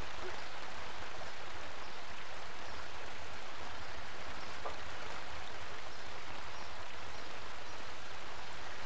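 Steady rushing noise of flowing river water, even and unbroken, with a low rumble underneath.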